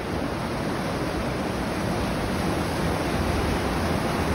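Steady rush of the Las Vegas Wash running fast over rapids.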